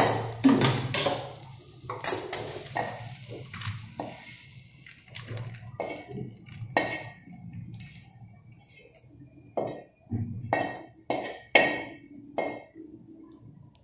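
A metal spoon scraping and clinking against a steel pan and bowl as a roasted coconut-and-sugar mixture is scooped out: a run of irregular clinks and scrapes, loudest in the first few seconds and sparser towards the end.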